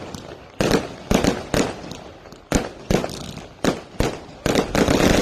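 Fireworks going off: an irregular series of sharp bangs, about ten in five seconds, the last ones running together into a dense crackle near the end.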